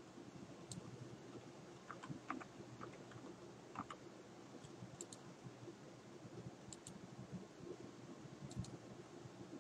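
Faint computer keyboard keystrokes and mouse clicks over a low steady hum. A small cluster of keystrokes comes about two to four seconds in, and a few sharper clicks come later.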